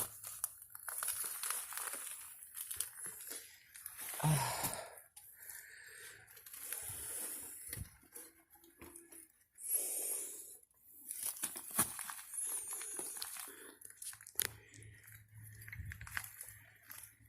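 Footsteps crunching and scraping over debris from a collapsed roof, with irregular cracks and crinkles of boards and litter underfoot and a louder thump about four seconds in.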